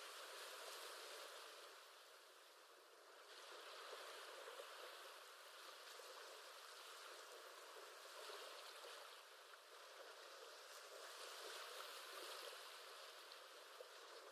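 Faint recorded ocean waves: a soft, even wash of surf that swells and eases off every few seconds.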